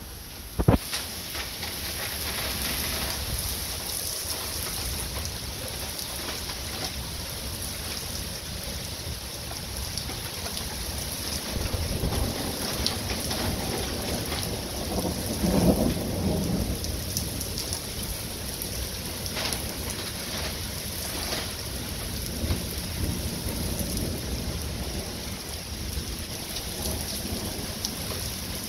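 Thunderstorm: steady rain falling on the street, with rumbles of thunder, the strongest rolling in a little past halfway. A sharp crack comes just after the start.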